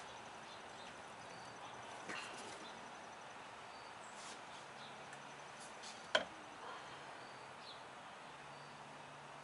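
Quart bottle of AMSOIL 5W-50 motor oil emptying into a funnel in the engine's oil filler, a faint steady pour, with one sharp click about six seconds in.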